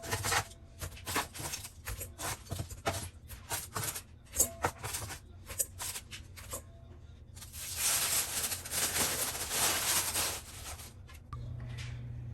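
Kitchen utensils clicking and tapping rapidly against cookware, then about three seconds of hissing noise. A steady low hum follows near the end.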